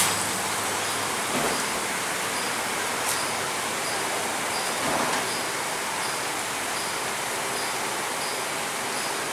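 WashTec Combiwash rollover car wash gantry at work on a car: rotating brushes scrubbing under water spray, giving a steady rush of water and brush noise. A faint ticking repeats about twice a second, with a couple of soft knocks.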